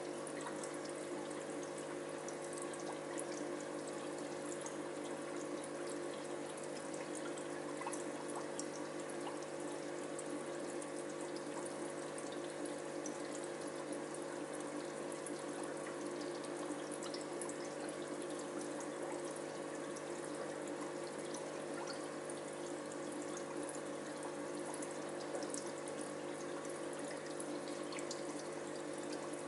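Aquarium water trickling and bubbling steadily from the tank's filtration, with a steady hum underneath.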